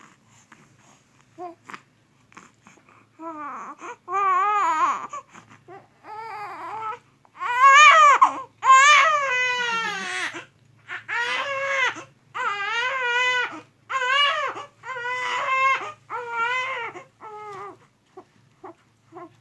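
A baby sick with flu and a cough crying: quiet small sounds at first, then wailing bouts from about three seconds in, loudest around the middle, followed by shorter cries roughly once a second that tail off near the end.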